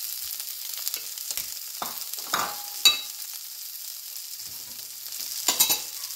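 Chopped onions and bell peppers sizzling in oil in a nonstick frying pan: a steady high hiss. A few sharp clicks and knocks come through it, the loudest about three seconds in and a short cluster near the end.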